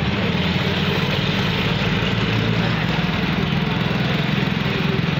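A vehicle engine running steadily with a low, evenly pulsing note, heard from inside the vehicle as it drives slowly along a street, with a steady hiss of road noise above it.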